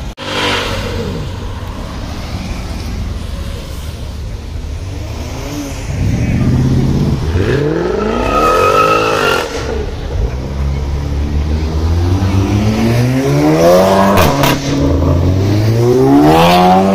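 Cars' engines driving past one after another: a quieter running engine at first, then an engine revved up and down a couple of times from about six seconds in, and another accelerating with rising pitch toward the end.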